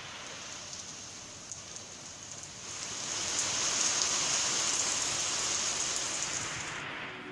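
Steady rain falling on wet ground, a smooth hiss that grows louder about three seconds in.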